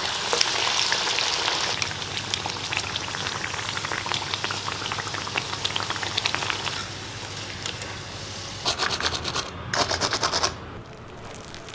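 Dal-batter fritters deep-frying in hot oil: a dense sizzle full of small crackles that eases off after about seven seconds. Near the end come two short, louder bursts of rapid crackling about a second apart, then it falls to a low hush.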